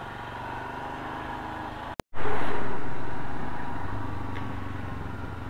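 Royal Enfield Himalayan's single-cylinder engine running under way, heard from the rider's helmet camera. About two seconds in the sound breaks off for an instant, then comes back with a loud rush of noise that slowly fades, the engine still running underneath.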